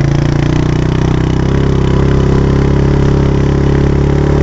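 Quad bike engine running steadily under load as it tows a kneeboarder through the snow on a rope.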